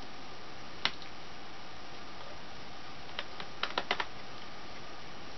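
Light sharp clicks of small screws and a screwdriver being handled against laptop plastic: one click about a second in, then a quick run of about five clicks near the four-second mark.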